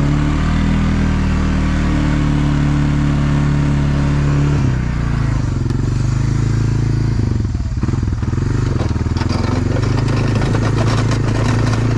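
Honda FourTrax 300 ATV's single-cylinder four-stroke engine running under way with the snow plow mounted. The note holds steady, eases off and wavers about halfway through, then settles back steady near the end.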